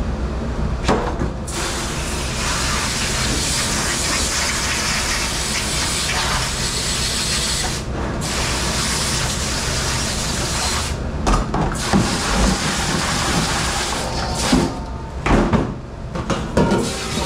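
Water spraying hard into a stainless steel dish-room sink from a commercial sink sprayer, in long steady stretches that break briefly about eight seconds in, then in shorter bursts. In the last few seconds, sharp knocks and clatter of items handled in the sink join in, over a steady low hum.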